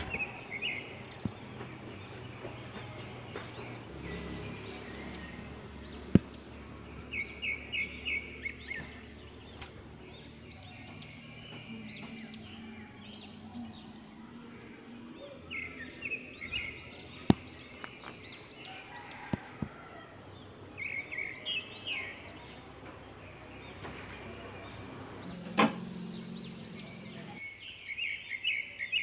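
Swiftlets twittering around their nests, short rapid runs of high chirps repeating several times, with a few sharp clicks standing out.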